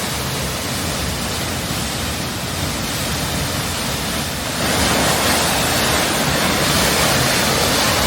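Waterfall roaring, a steady rush of falling water that gets louder about halfway through.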